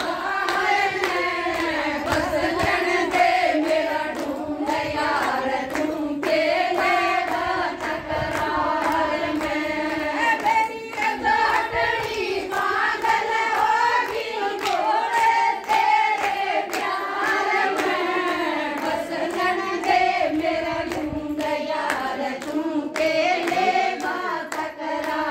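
A group of women singing a Haryanvi devotional bhajan to Shiva together, with hand clapping along to the song.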